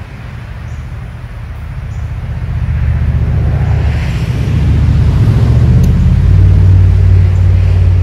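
A motor vehicle passing, its low engine rumble building over a few seconds and loudest in the second half.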